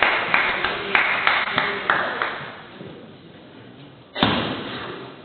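Table tennis rally: the celluloid ball clicking off bats and table about three times a second for a couple of seconds, ringing a little in a large hall. A sudden loud noise comes about four seconds in and fades away.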